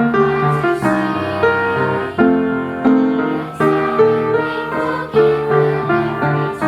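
Piano music, notes and chords struck in turn and left to ring.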